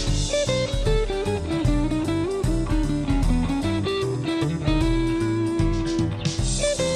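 Instrumental break in a band arrangement of a worship song: a guitar plays a single-note lead melody over a steady beat of bass and drums, with no singing.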